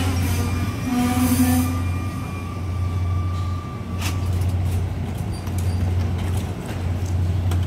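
Mugunghwa-ho passenger train coming to a stop at a platform: a steady low hum with thin squealing tones that die away about four seconds in, and a single sharp clack at about the same point.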